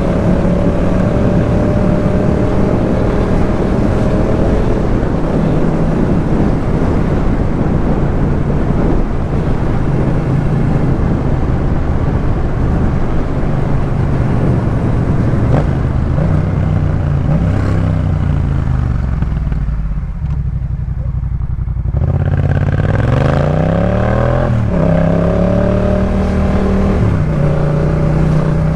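Yamaha MT-07's parallel-twin engine running through a Jeskap K4 full aftermarket exhaust, holding steady revs at first. About two-thirds of the way in it goes quieter for a couple of seconds, then its pitch rises and falls several times as it is revved.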